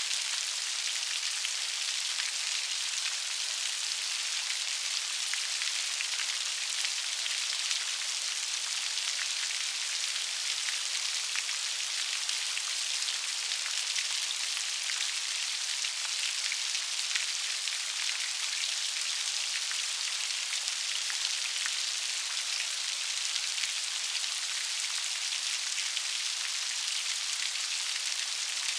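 Steady rain falling, an even hiss with the patter of individual drops on a surface.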